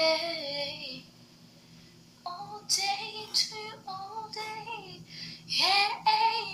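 High-pitched singing in short phrases: a held note at the start, a string of short notes in the middle, and a rising high note near the end, over a low steady hum.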